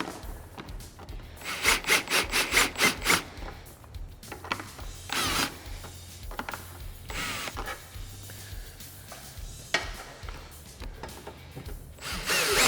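Ratchet wrench clicking in a quick run of strokes as nuts are tightened onto snap fasteners, then scattered handling and tool noises, over background music.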